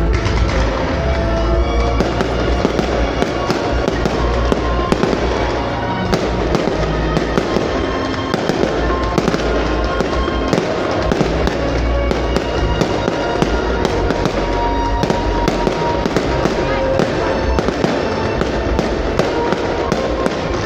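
Fireworks bursting and crackling in a dense, continuous barrage, several bangs a second with a low rumble, over the display's music soundtrack.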